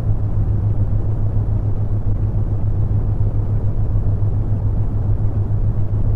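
Brown noise: a steady, deep rumbling hiss that is heaviest in the bass, with a continuous low hum of the theta-wave tone under it.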